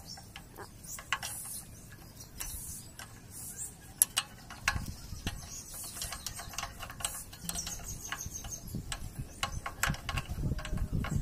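Scattered metal clicks and taps of a spanner working the bolt of a Kamco power tiller's fan-belt tension pulley, with one sharper click about four seconds in.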